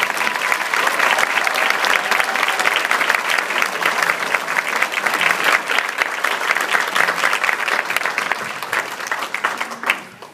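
Audience applauding, a dense steady clatter of many hands clapping, which cuts off abruptly near the end.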